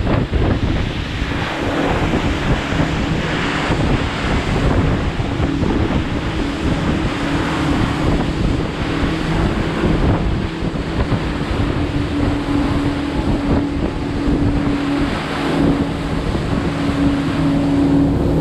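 Charter boat under way: its engine drones steadily under the rush of wind and water, with wind buffeting the microphone. The engine hum grows more prominent about a third of the way in.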